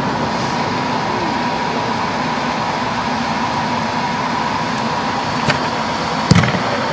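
Steady rushing ventilation noise inside an inflated air-supported sports dome, with a faint steady hum. Two sharp knocks near the end, the second louder.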